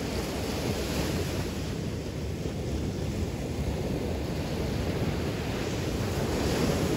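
Small Gulf of Mexico surf breaking and washing up on a sandy beach in a steady wash, with a wave breaking a little louder near the end. Wind buffets the microphone.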